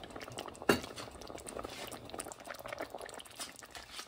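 Thick chicken and leek stew, thickened with cheese, simmering in an enamelled cast-iron pot: a steady scatter of small bubbling pops and crackles, with one sharper click about three-quarters of a second in.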